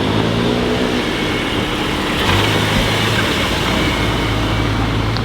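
Volkswagen Golf 8R's turbocharged 2.0-litre four-cylinder engine pulling away, its pitch rising over the first second. A louder rush follows about two seconds in, then a steady low drone.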